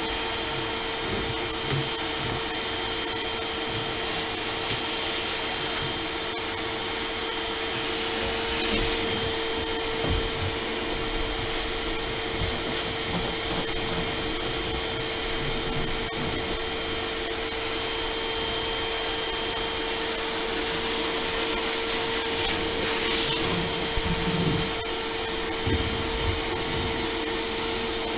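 Shop vacuum running steadily with a constant whine as its nozzle is worked over the boat's floor, sucking up dirt and loose debris.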